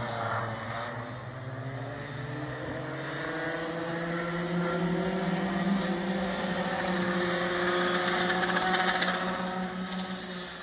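Several racing go-kart engines, their pitch climbing as they accelerate; the sound swells about three quarters of the way through and then fades.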